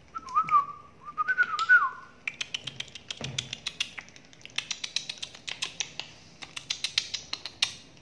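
A wavering whistle lasting about two seconds, then a long run of rapid, sharp, high-pitched clicking chatter from a peach-faced lovebird on top of its cage.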